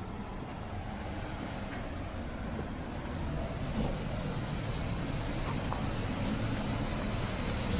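Steady rushing of the gorge's waterfall and stream, a continuous low rumble that grows slightly louder partway through, with a faint tick or two of footsteps on the icy rocks.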